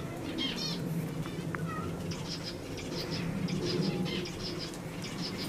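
Small birds chirping in quick repeated notes, a dense run of about four chirps a second starting about two seconds in, over a steady low hum.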